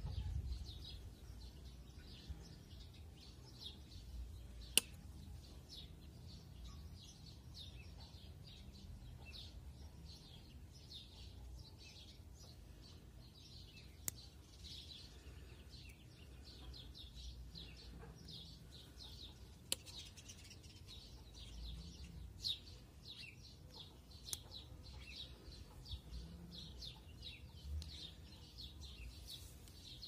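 Small birds chirping continually in quick, high calls, over a low background rumble, with a few sharp clicks scattered through.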